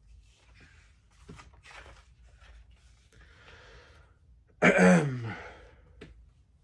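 A man's voice: soft breathy sounds, then about two-thirds in a short, loud vocal sound that falls in pitch, like a sigh or groan, rather than a spoken word.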